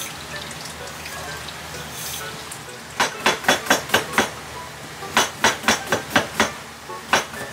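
Tap water running into a steel sink as a cucumber is rinsed. About three seconds in, a kitchen knife starts thin-slicing the cucumber on a cutting board in quick, even chops about five a second, in runs with short pauses.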